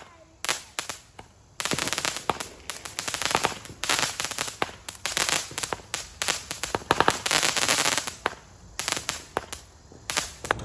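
A consumer firework, the Solar Surge, going off in a rapid string of sharp cracks and pops. The run starts about a second and a half in and thins to a few scattered cracks near the end.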